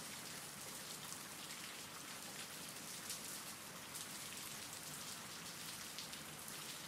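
Soft, steady rain: an even patter of raindrops from a rain-sound ambience track.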